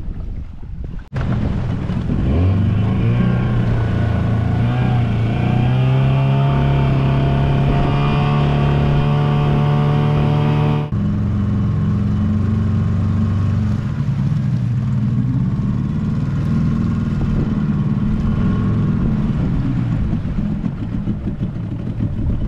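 Boat engine revving up, its pitch climbing and then holding steady at speed, with an abrupt change to a steadier run about eleven seconds in.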